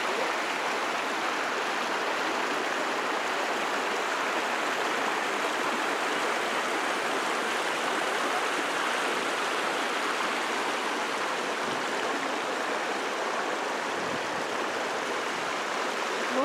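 Shallow mountain stream rushing over rocks, a steady, even water noise.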